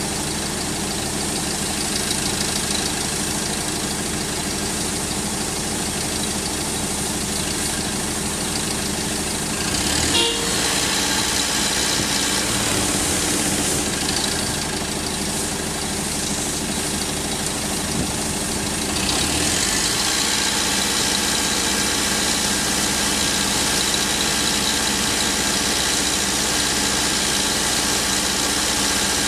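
Diesel engine of a Liebherr R 950 Demolition high-reach excavator running steadily, growing louder about ten seconds in and again near twenty seconds. A brief sharp sound comes about ten seconds in.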